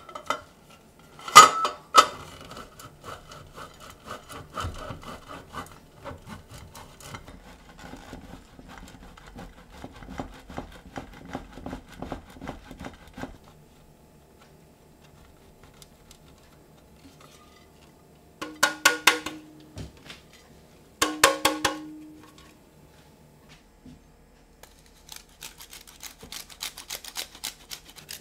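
Cheddar being grated on a metal box grater into a ceramic bowl: a couple of knocks as the grater is set down, then quick repeated rasping strokes. After a pause, two short clattering knocks with a brief ring from the bowl, and near the end faster, finer scraping as parmesan is rubbed on a fine rasp grater.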